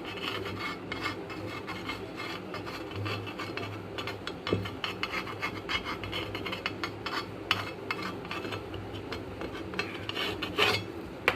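Glue being spread by hand onto a speaker's paper cone and frame rim: a fast run of short, scratchy rubbing strokes, with a couple of sharper scrapes near the end.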